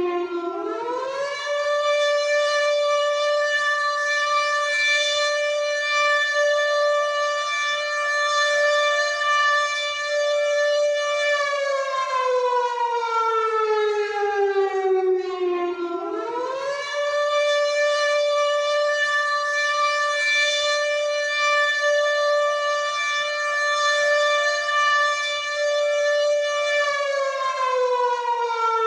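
WW2-style air raid siren wailing in long cycles: the pitch climbs quickly, holds steady for about ten seconds, then slides slowly down over several seconds. The cycle runs twice, with the second fall starting near the end.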